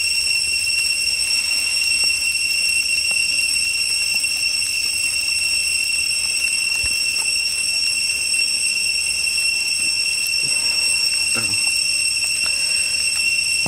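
Steady high-pitched insect drone, one unbroken tone with higher overtones, over a few faint taps and clicks.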